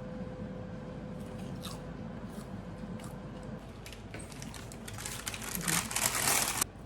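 Close-up eating sounds: biting and crunching food, with a louder stretch of crunching near the end.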